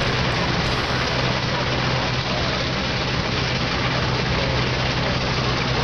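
Steam traction engine working under load: a steady mechanical running noise with a low, even hum and no break.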